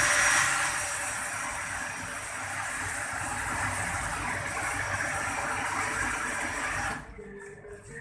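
Gallon water-jug washing machine running its wash cycle: a steady rush of pumped water spraying inside the stainless cabinet, cutting off suddenly about seven seconds in.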